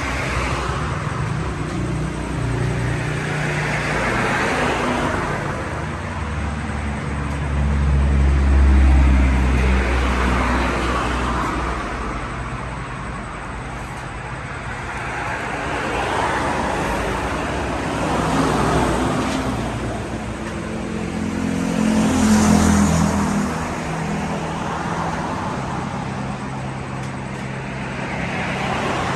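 Road traffic: vehicles passing one after another, each swelling and fading over a few seconds, over a steady low hum, with louder low rumbles about a third of the way in and again about three quarters of the way through.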